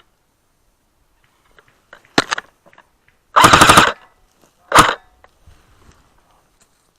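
Airsoft gun firing on full auto, close by: three bursts of rapid shots, a short one, a longer one of about half a second, then another short one.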